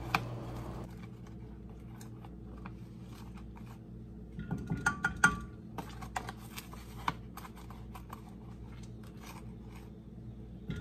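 Light clicks and clinks of kitchen utensils and packaging as ingredients are added to a saucepan, over a low steady hum. A quick cluster of taps comes about four to five seconds in.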